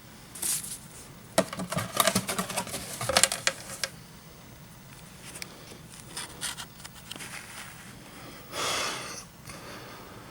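Packaging being handled while a product box is unboxed: a quick run of clicks and knocks over a couple of seconds, then scattered light taps, and a short sliding swish near the end.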